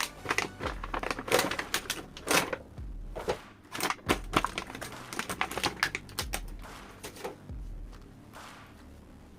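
Plastic toy parts and packaging handled up close: a dense, irregular run of sharp clicks and crackles for about the first seven seconds, then quieter handling.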